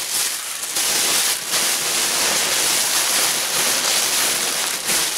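Steady crinkling rustle of plastic air-pillow packing being pulled out of a cardboard box.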